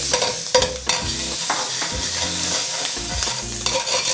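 Melted butter sizzling in a hot wok while a steel wok ladle stirs and scrapes against the pan, with scattered sharp clicks of metal on metal.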